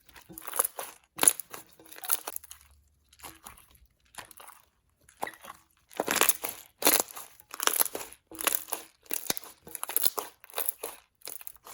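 Thin coated clear slime being folded and pressed by hand, giving a run of squishy pops and crackles as air bubbles burst, busier in the second half.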